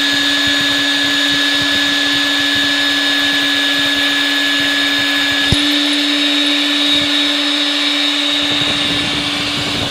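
Powerbor PB100E FRV magnetic drill running under load, its cutter boring dry into a steel plate without coolant: a steady, loud motor whine with one sharp click a little past halfway.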